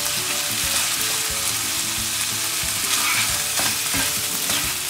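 Diced chicken in tomato paste sizzling in a nonstick frying pan, with a wooden spatula stirring and scraping against the pan.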